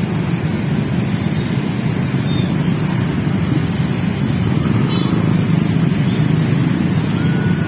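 Dense traffic of many small motorcycles and a few cars moving off together, their engines making a steady, dense low rumble.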